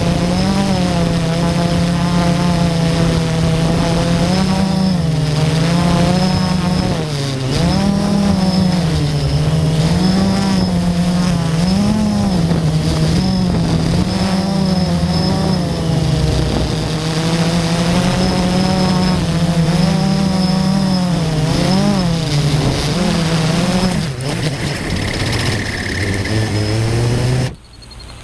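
FPV multirotor drone's motors whining, the pitch rising and falling again and again with the throttle. Near the end the motors cut off suddenly.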